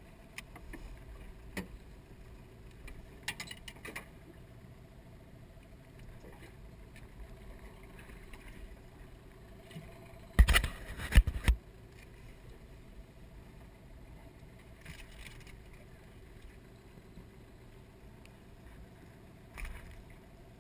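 Knocks, clicks and light rattles as a netted mangrove jack is handled and unhooked in an aluminium dinghy, with a burst of loud knocks against the hull about ten seconds in, over a faint steady hum.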